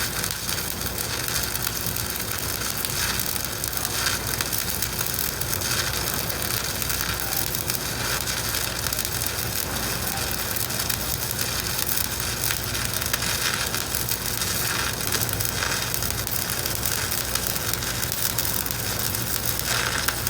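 Stick (shielded metal arc) welding arc burning on a vertical steel weld: a steady noisy sizzle with short irregular flares.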